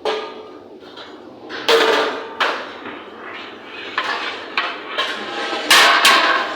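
Kitchen clatter: a string of irregular knocks and clanks of utensils and cookware, some ringing briefly, the loudest pair near the end.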